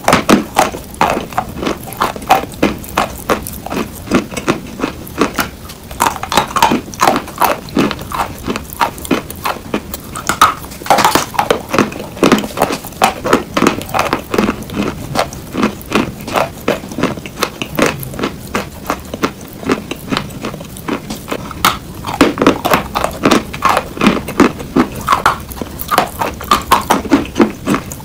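Close-miked crunching of a chalk block being bitten and chewed: a dense, steady run of sharp gritty crunches, several a second.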